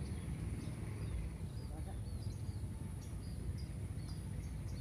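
Small birds chirping in short high notes, one every half second or so, over a steady low rumble and a faint steady high hiss.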